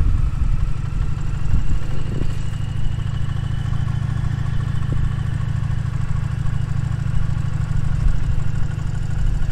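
Indian Challenger motorcycle's V-twin engine running steadily at low road speed, with no marked revving or gear changes.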